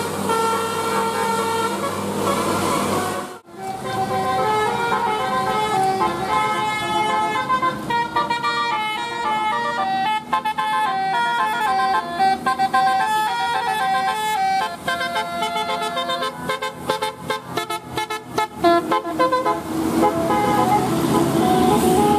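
Bus telolet horn, a multi-trumpet melody air horn, playing a tune of stepped notes, with a fast run of short toots near the end. Vehicle running noise is heard at the start and again near the end.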